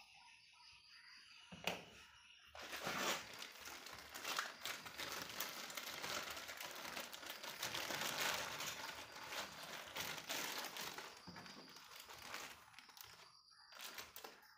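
A sharp click, then a thin clear plastic bag crinkling continuously for about ten seconds as it is handled, tapering off near the end.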